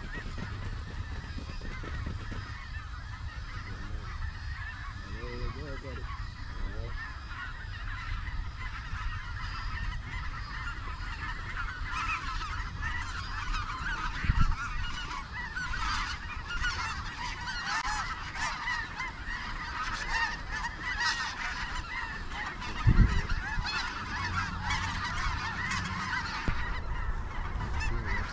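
A large flock of snow geese calling overhead: a dense, overlapping chorus of high honks and yelps that grows louder and thicker as the birds circle in. Two dull thumps break through, about halfway and again later on.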